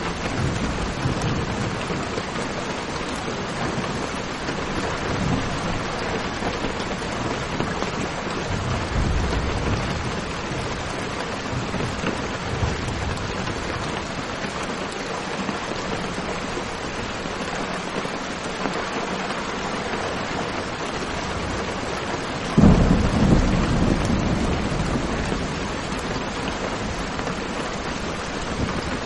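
Steady rain falling in a thunderstorm, with low rumbles of thunder in the first half. About three-quarters of the way through a loud clap of thunder breaks in and fades away over a few seconds.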